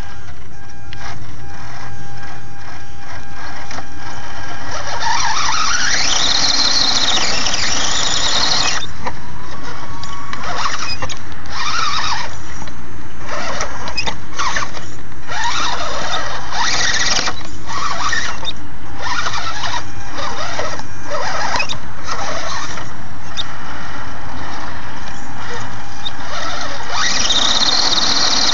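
High-pitched whine of a radio-controlled rock crawler's small electric winch motor hauling the truck up a rocky slope. A long run rises in pitch about five seconds in, then the winch stops and starts in many short bursts, and runs long again near the end.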